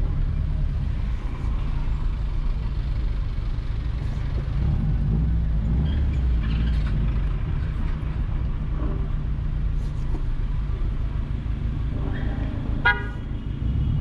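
Low, steady rumble of a car driving slowly, with a short car horn toot near the end.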